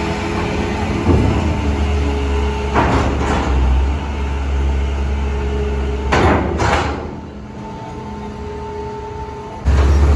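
Heavy vehicle engine running low and steady, broken by several loud clanking knocks, two of them close together about six seconds in. Near the end the engine sound drops away, then comes back suddenly loud.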